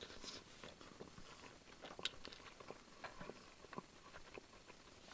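Faint close-up chewing of a mouthful of cheeseburger: scattered small wet clicks and mouth smacks, with one sharper click about two seconds in.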